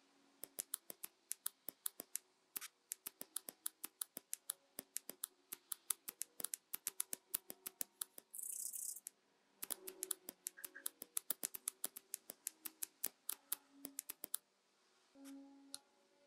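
Quiet background guitar music with a dense, irregular run of sharp clicks, several a second, that stops about two seconds before the end. A short hiss comes about eight seconds in.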